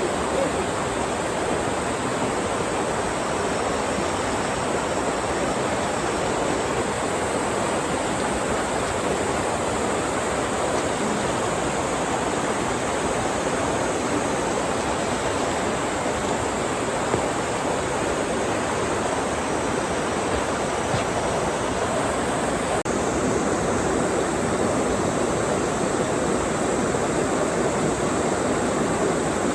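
Mountain valley stream rushing steadily over rocks, a continuous loud wash of water that grows a little louder in the last few seconds.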